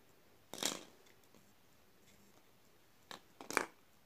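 Hands handling a cable float switch and its cord: a short rustling scrape about half a second in, then a quick cluster of rustles and clicks near the end.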